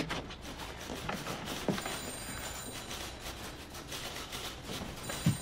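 Office room tone with a telephone ringing in the background: two short rings about three seconds apart.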